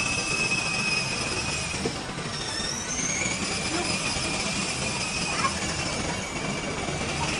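Rail vehicle running with a steady rumble and high squealing tones from the wheels on the track; the squeal drops out and shifts pitch about two seconds in.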